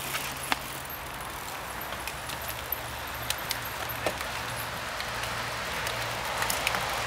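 Mountain bikes riding past on a dirt trail: tyre noise on the soil with scattered clicks and rattles from chains and gears, over a steady low hum.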